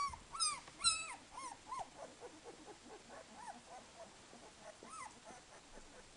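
Twelve-day-old Dalmatian puppies squealing: a run of high, falling cries in the first two seconds, then fainter short squeaks and whimpers, with one more clear cry about five seconds in.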